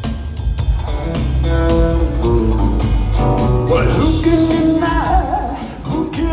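Live trio of drum kit, bass and guitar playing a bluesy rock groove between sung lines, recorded on a phone in the audience.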